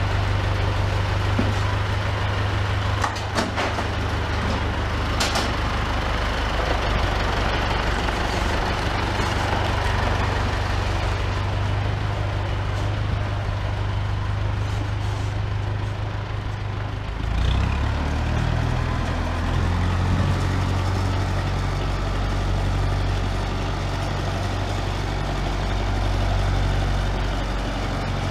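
International Harvester 574 tractor engine running steadily as the tractor pulls out of the barn and across the yard. A few sharp knocks come about three to five seconds in, and the engine note shifts a little past halfway.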